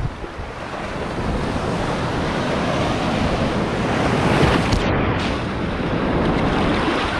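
Ocean surf: waves breaking and washing in, swelling to their loudest about four and a half seconds in, with wind buffeting the microphone.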